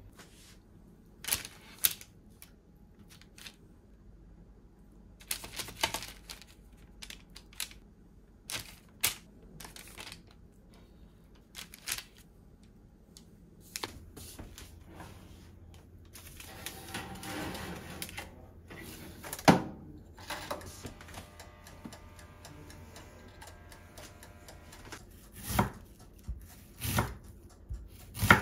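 Kitchen handling sounds: scattered clicks and knocks of a slotted turner and a pan, then a low steady hum from about halfway. Near the end, a kitchen knife chops an onion on a wooden cutting board with a few sharp knocks, about a second apart.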